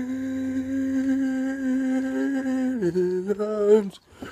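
A man humming one long, steady note, which drops lower about three seconds in and wavers before it breaks off shortly before the end.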